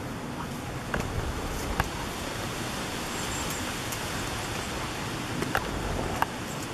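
A dog walking through a shallow muddy stream bed: a steady rushing hiss of water and foliage, with a few sharp, light clicks and splashes from its paws in the mud and twigs.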